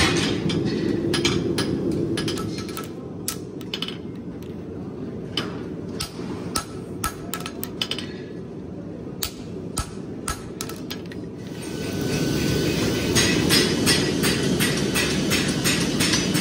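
Hand hammer striking a red-hot steel horseshoe on an anvil while it is being forged, in irregular runs of sharp blows. About twelve seconds in, a louder steady rushing noise with quick crackles takes over.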